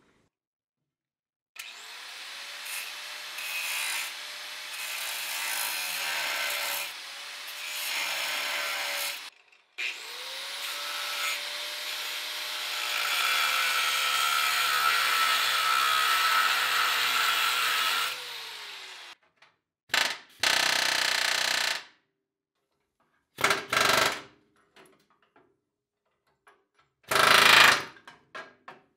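Large angle grinder with a cutoff wheel cutting steel on a truck frame bracket in two long cuts, with a brief stop between them; the second cut ends with the motor winding down. This is followed by a few short bursts of a pneumatic air hammer.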